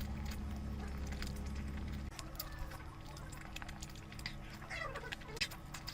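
Close-miked eating sounds of curry: wet chewing and lip smacking, with scattered sharp mouth clicks. A low steady hum underneath cuts off about two seconds in.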